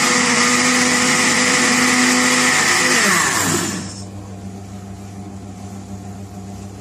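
Electric blender running at full speed, blending yogurt and sugar for a lassi, then switched off about three and a half seconds in, its motor whirring down in pitch. A low steady hum remains afterwards.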